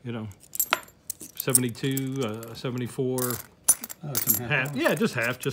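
Loose coins clinking as a hand sorts through a small stack and lets them drop one at a time into a velvet-lined tray. The sound is a run of irregular sharp metallic clicks and chinks.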